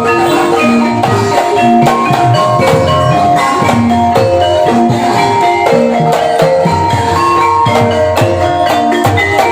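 Javanese gamelan music accompanying ebeg, mallet-struck tuned percussion playing a steady run of interlocking notes over low drum strokes.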